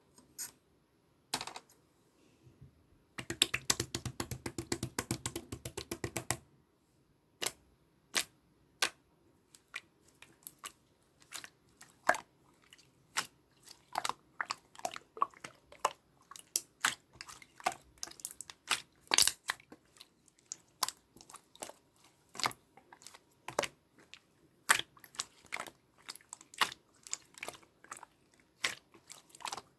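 Slime being squished and poked, making wet clicking pops. About three seconds in there is a dense run of rapid crackling clicks lasting about three seconds, then separate sharp clicks come one or two a second.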